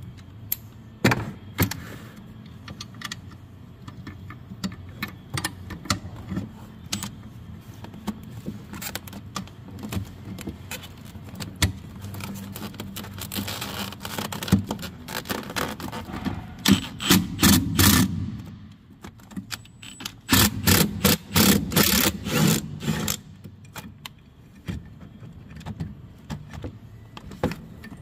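Socket and extension working the condenser fan motor's mounting bolts: scattered metallic clicks and taps, with two long runs of rapid clicking, one midway and one about two-thirds through, over knocks from hands and tools being handled close by.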